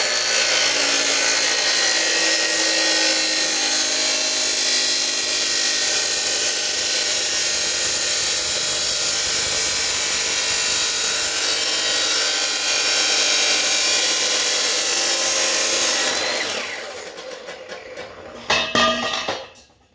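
Ryobi 12-inch miter saw fitted with an abrasive grinding wheel, cutting through steel: a loud, steady grinding over a high motor whine. The motor winds down about three-quarters of the way through, followed by a few knocks.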